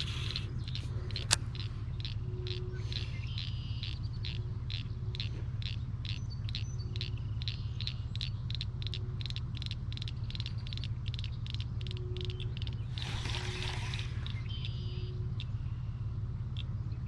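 Outdoor ambience: a steady low rumble under a high chirp repeated evenly about two or three times a second, with one sharp click about a second in and a brief rush of noise near the end.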